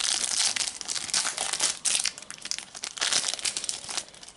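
Foil wrapper of a Panini Adrenalyn XL trading card packet being torn open and crinkled in the hands, a dense crackling in several bursts that dies down near the end.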